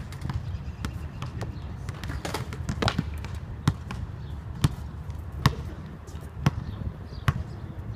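Basketball dribbled on an outdoor hard court: a regular run of sharp bounces, a little more than one a second, loudest in the second half.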